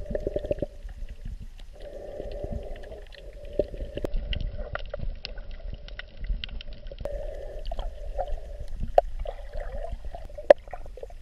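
Muffled water sounds, gurgling and sloshing over a low rumble, with scattered sharp clicks throughout.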